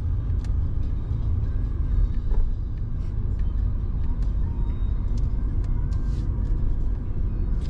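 Steady low road rumble inside a moving car's cabin: tyre and engine noise at cruising speed, with a few faint scattered clicks.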